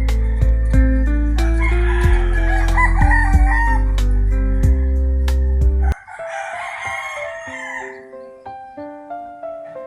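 Background music of sustained melodic notes over a heavy bass, with a rooster crowing twice over it. The bass drops out about six seconds in and the music goes on more quietly.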